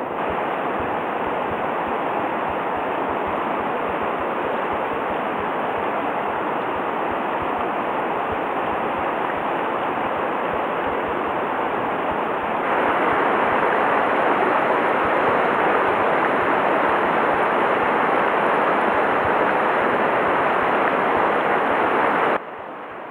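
Shallow river rushing and splashing over rocks in a riffle, a steady rush of water. It gets louder about halfway through and drops away suddenly near the end.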